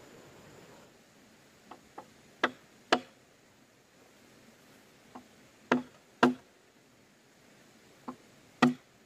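Hand-tool blows on bamboo: sharp knocks in three groups, each a light tap followed by one or two hard strokes about half a second apart, with a short hollow ring after each hard stroke.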